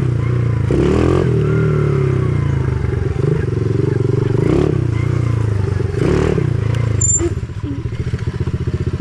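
Dirt bike engine running while riding, then dropping to a steady idle about seven seconds in.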